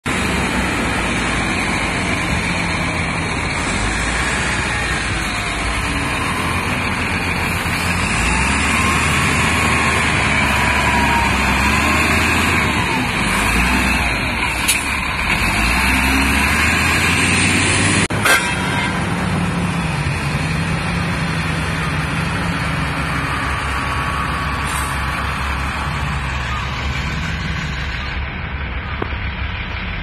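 Diesel engines of wheel loaders running steadily, rising and falling in pitch as they push and scoop sand, with one sharp click about eighteen seconds in.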